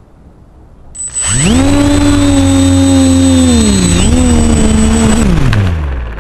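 Electric motors and propellers of a small FPV multirotor spinning up about a second in with a quickly rising whine and holding a steady pitch through a short hop. The pitch dips briefly about four seconds in, then winds down as the craft settles back onto the grass. A thin high whine runs along with the motors.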